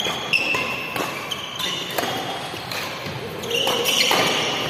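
Badminton doubles rally: several sharp racket strikes on the shuttlecock and short squeaks of court shoes on the synthetic mat, echoing in a large hall.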